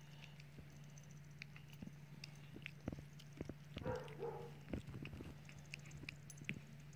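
Exotic shorthair kitten biting and chewing soft bread: a scattered run of small faint clicks and smacks. A short, soft pitched sound comes about four seconds in, over a steady low hum.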